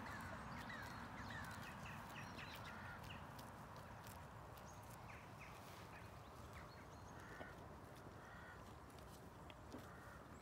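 Faint birds calling outdoors: a scatter of short chirps and a few harsher, crow-like calls, over a steady low rumble.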